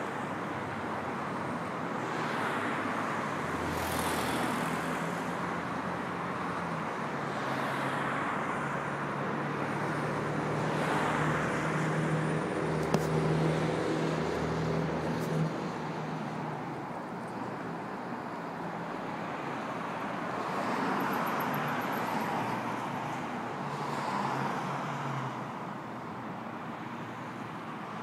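Road traffic: a steady wash of cars passing one after another, swelling and fading every few seconds, with a low engine hum through the middle stretch.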